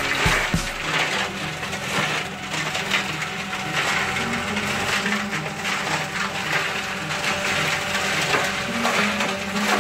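Tractor-driven flail shredder chopping branches and stalks: a dense crackling and splintering of wood over the steady note of the tractor engine.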